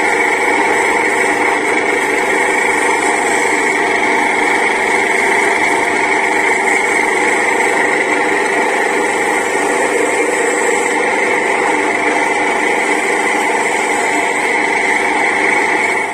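Electric grater running with a steady motor whine, its spinning ribbed head shredding peeled cassava pressed against it.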